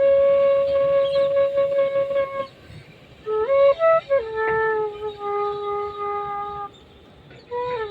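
Flute music: a slow solo melody of long held notes with slides between them, breaking off briefly twice.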